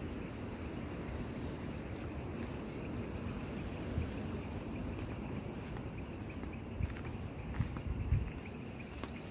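Night insects trilling in a steady, high-pitched drone that fades somewhat about six seconds in, over a low wind rumble and a few soft knocks.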